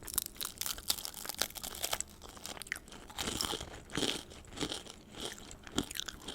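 Close-miked eating of a crunchy corn tortilla filled with vegetables: a run of crisp crackling bites and chewing, with a few louder crunches in the middle.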